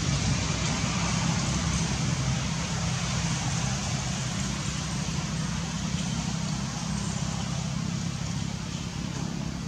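Steady outdoor background rumble with a hiss above it, easing slightly toward the end; no distinct calls or knocks stand out.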